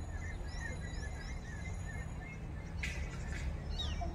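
Small birds chirping over and over in short chirps that glide up and down, over a steady low rumble. A brief hiss comes about three seconds in.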